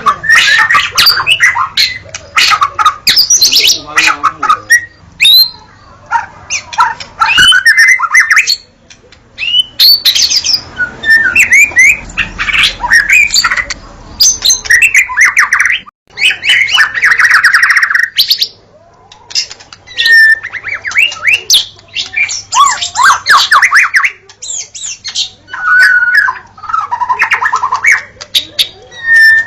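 White-rumped shama singing loudly and continuously: rapid, varied phrases of whistles, chattering rattles and sharp clicks, one after another with brief pauses between them.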